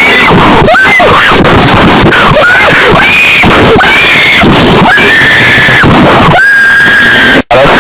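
Loud, heavily distorted screaming with wailing rises and falls in pitch, one after another, in a fan-made emergency alert alarm. Near the end it gives way to a held steady high tone that cuts out abruptly for an instant.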